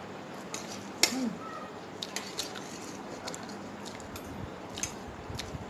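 A metal spoon clicking and scraping on a plate while someone chews noodles: a handful of light, scattered clicks, the sharpest about a second in.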